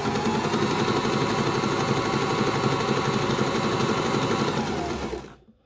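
Janome My Style 20 sewing machine running steadily, sewing a three-step zigzag in the stretch-stitch setting, so the fabric feeds forward and back to form a lattice stitch. The motor slows and stops about five seconds in.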